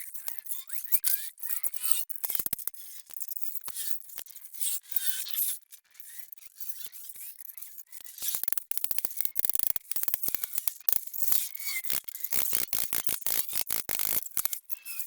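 Metal hand-tool clicks and scraping, with a long fast run of ratchet-like clicking in the second half.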